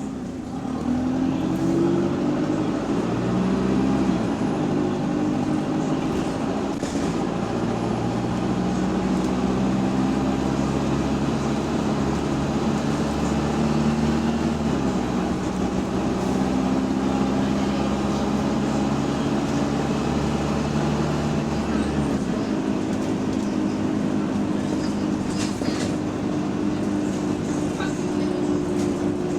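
Bus diesel engine pulling away and running under load, its note climbing and shifting in steps. About 22 seconds in, the deep engine note drops away and a steady higher whine carries on.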